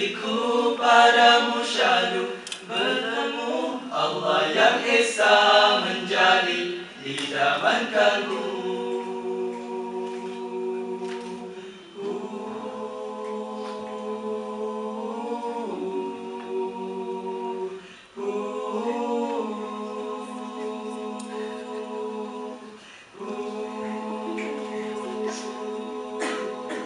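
Small male nasheed group singing a cappella in harmony into a handheld microphone. The first several seconds carry a moving melody; after that come long held chords, each sustained a few seconds, with short breaks between them.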